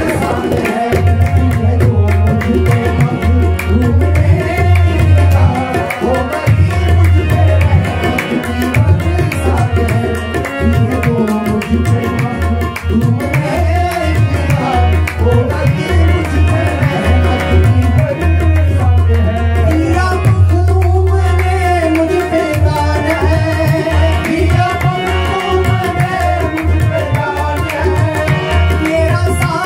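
Music of a devotional song: tabla drumming under a wavering melody line.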